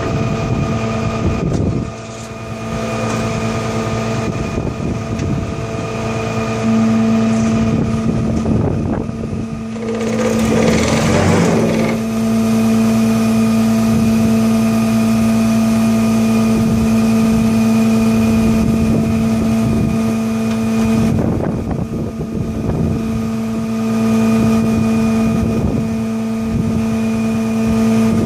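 Flatbed tow truck's engine idling, a steady even hum that does not change. A rush of noise comes about ten seconds in, and again a little past twenty seconds.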